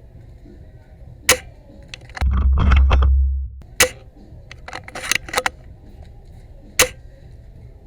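Airsoft gun shots: three sharp single cracks, a few seconds apart, with a quick run of clicks between the second and third and a loud low rumble on the microphone after the first.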